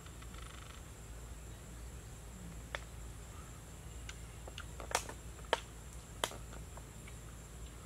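Faint outdoor forest ambience with a steady thin high-pitched drone. A few sharp clicks stand out, about three, five and six seconds in, the one around five seconds the loudest.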